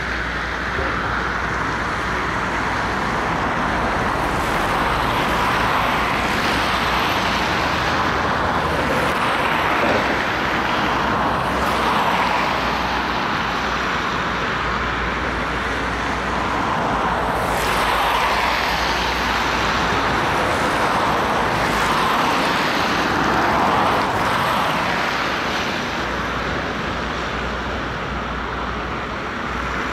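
Diesel engines of a Hitachi 225 USR excavator and a Volvo truck running at work. The engine noise is continuous and swells and eases every few seconds.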